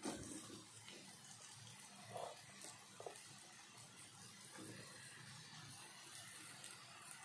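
Near silence: a faint hiss from masala frying in a steel kadhai, with two soft knocks from the ladle, about a second apart, as cut potatoes go in.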